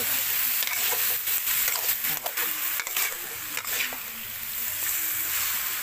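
Chunks of snake meat sizzling in oil in a wok while a metal spatula scrapes and knocks against the pan, stirring them over and over.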